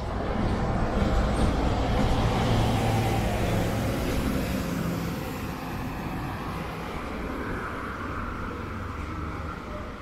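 A road vehicle passing close by on the street, its engine and tyre noise swelling in the first second, loudest for a few seconds, then fading into steady traffic noise.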